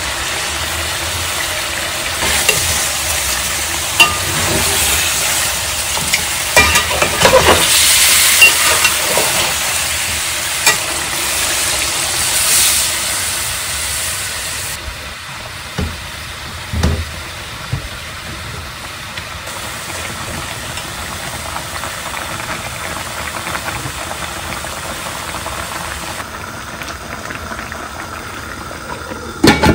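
Chicken pieces frying and sizzling in oil in a metal pan, with a spoon scraping and clicking against the pan as it is stirred. The sizzle grows louder a couple of seconds in as chopped ginger goes in, then settles to a steadier, quieter fry. A short loud clatter near the end.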